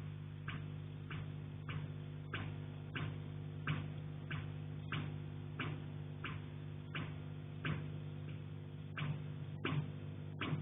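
Steady, evenly spaced sharp ticks, about three every two seconds, over a constant low hum.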